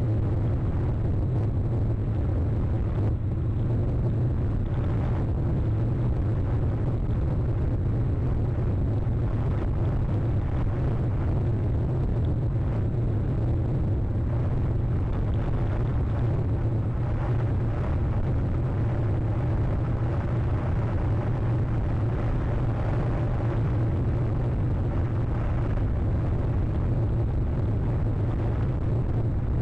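Steady low rumble with no breaks, even in level and strongest in the bass.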